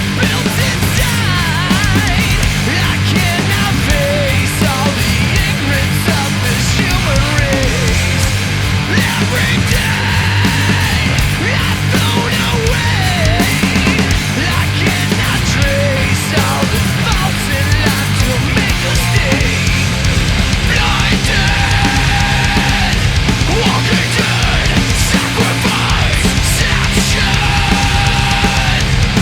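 Loud, steady heavy rock music.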